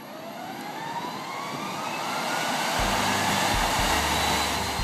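Jet engine spooling up: a rising whine over a rushing roar that grows steadily louder, with low steady tones joining about three seconds in.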